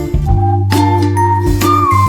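Background music with a steady beat: sustained bass notes under a light, bell-like melody.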